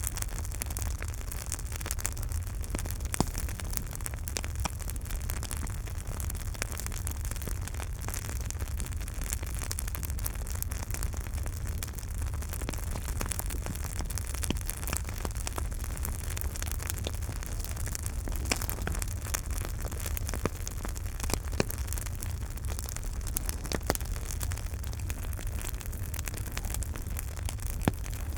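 Campfire burning with a steady low rumble and hiss, and frequent small crackles and pops of the burning wood.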